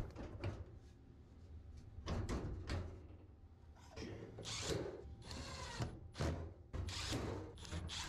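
Milwaukee cordless drill-driver running in short spurts, driving screws into a dryer's sheet-metal front panel, with clicks and rattles from the panel being handled.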